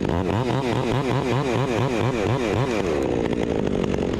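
Chainsaw engine revved up and down in quick blips, about four a second, then dropping back near the end, over the steady drone of another engine.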